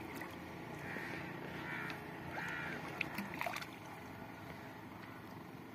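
A bird calling three times in short calls, starting about a second in, followed by a few sharp clicks just past the middle.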